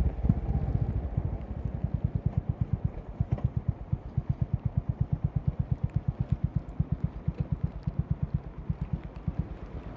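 Honda CB350RS single-cylinder four-stroke engine idling with the bike stopped: an even, steady train of exhaust pulses, about seven or eight a second.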